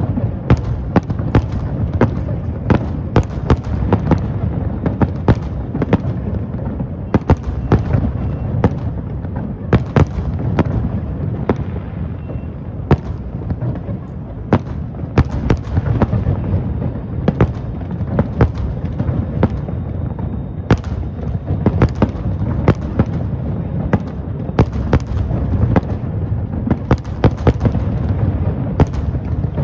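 Fireworks display: shells bursting in an irregular run of sharp bangs, about one to two a second, over a continuous low rumble.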